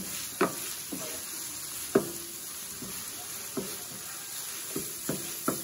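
Seasoned ground beef sizzling on the Blackstone 17-inch E-Series electric griddle as a spatula chops and stirs it, each stroke knocking sharply on the griddle top, irregularly about once or twice a second.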